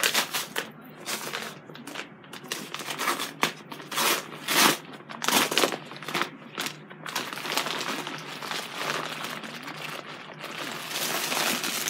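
Packaging crinkling and rustling in irregular bursts as a parcel is opened and unpacked by hand.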